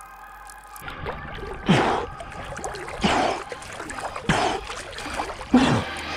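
A cold-water swimmer's loud gasping breaths in 14 °C water, four of them about once every second and a half, each falling in pitch, with water splashing around him.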